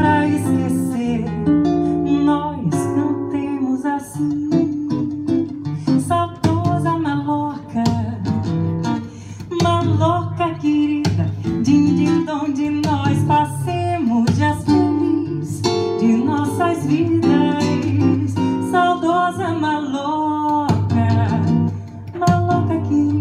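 Live acoustic guitar accompanying a woman singing into a microphone.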